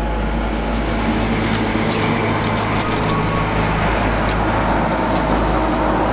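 Steady vehicle engine noise, with a few light clicks between about one and a half and three seconds in.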